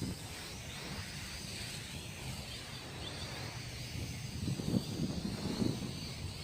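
Wind rumbling on the microphone, with the faint high whine of the MJX X600 hexacopter's motors wavering up and down in pitch as the throttle changes.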